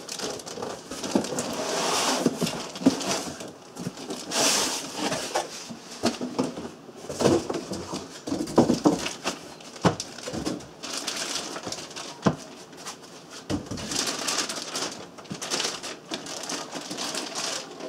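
Unboxing noise: a boxed instrument in white foam end caps is drawn out of a cardboard box and set down, with foam and cardboard scraping and several sharp knocks. Near the end a plastic bag crinkles.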